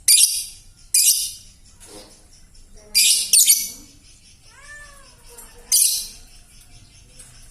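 Young lovebird giving short, harsh, hoarse screeches, about five of them, two in quick succession near the middle; its chatter is still raspy at this age. Just after the middle, a lower call bends up and then down.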